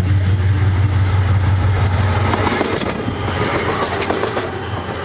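Train locomotive coming along the tracks: a steady low engine rumble, which gives way about halfway through to rattling clatter as the sound slowly fades.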